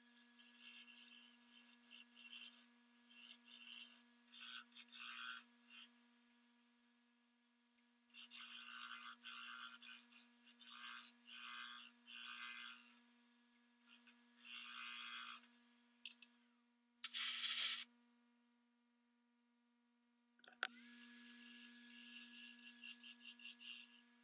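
Repeated short bursts of dry rasping and scraping, about half a second to a second each with brief pauses between them and a longer pause near the end, over a faint steady hum.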